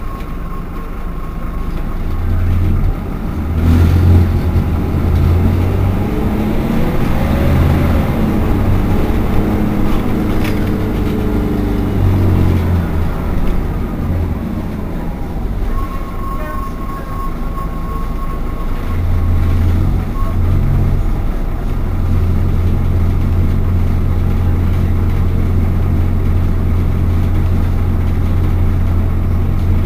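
Irisbus Citelis 12 city bus's diesel engine idling at a standstill with a deep steady rumble that dips a few times. Another engine note rises and falls in pitch during the first half, and a thin steady tone sounds for about four seconds past the middle.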